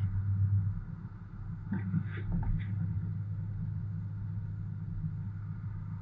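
Low, steady road and engine drone of a Toyota Tundra pickup driving on a snow-covered highway, heard from inside the cab, with a few short higher-pitched sounds about two seconds in.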